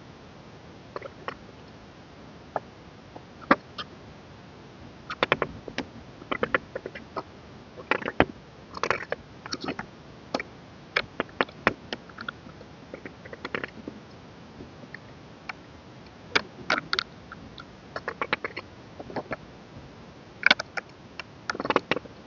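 Hands handling the parts of a K-pop album: scattered taps, clicks and crinkles of paper, card and plastic being picked up, turned over and set down.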